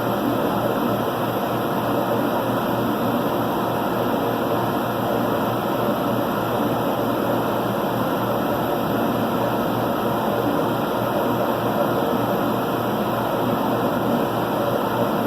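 Steady mechanical noise of a running CNC laser machine, even and unchanging.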